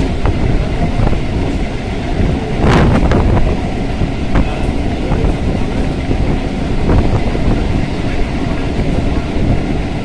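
Electric suburban local train running at speed, heard from inside the carriage at an open window: a steady rumble of wheels on track with rail clatter and wind. About three seconds in there is a louder rush of clatter, and a few sharp clicks follow.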